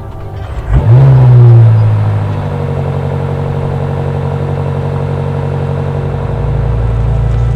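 BMW M5 (G90) 4.4-litre twin-turbo V8 starting: it catches about a second in, flares up in revs, then settles to a steady idle.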